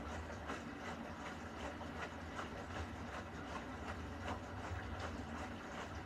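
Beko front-loading washing machine in its wash cycle: a steady low hum from the drum motor, with water and laundry sloshing in the turning drum about twice a second.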